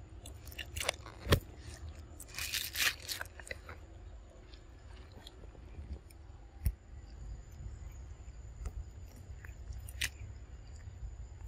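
A young macaque biting, tearing and chewing crisp cabbage leaves: a run of crunchy crackles in the first three seconds, then a few single sharp snaps, over a steady low rumble.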